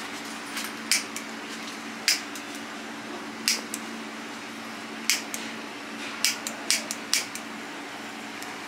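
A lighter clicked about seven times, in short, sharp separate clicks spread over several seconds, as small flames are lit in the garnish on a metal serving tray. A steady low hum sits underneath.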